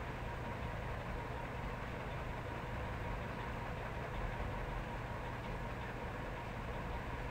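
Steady hum and hiss with a few faint unchanging tones, with no breaks or sudden events.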